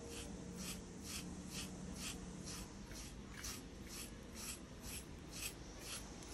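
Medium carding knife raking through a cocker spaniel's coat at the top of the back, pulling out dead undercoat. It makes soft scratchy rasps in quick, even strokes, about two to three a second.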